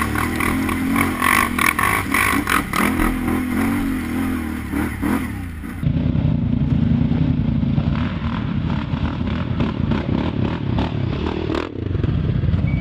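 ATV engine running with its pitch rising and falling as the quad climbs a rocky trail, with rattling and clatter. The audio cuts abruptly about six seconds in to a steadier, lower engine drone of an ATV fording a creek.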